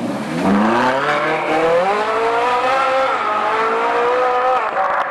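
Ferrari 458's naturally aspirated V8 accelerating hard as the car pulls away, its note rising steeply over the first two seconds and then holding high, with a brief dip about three seconds in and another near the end.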